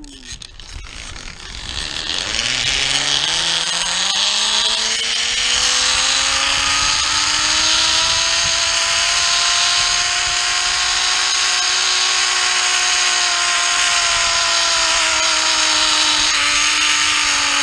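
Zipline trolley pulleys running along the steel cable: a whine that rises in pitch as the rider picks up speed, holds steady through the ride, then drops as the rider slows near the end, over a steady hiss.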